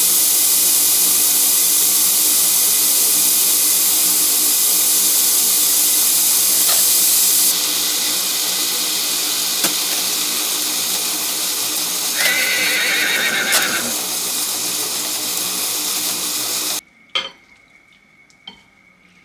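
Kitchen tap running steadily into a sink, with the splash changing for a couple of seconds about twelve seconds in. The water is shut off suddenly near the end, followed by two light clicks.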